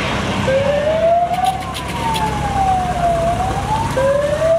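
A siren wailing, its pitch sliding up, then down over a couple of seconds, then up again. Under it runs a steady low drone of a light aircraft's engine.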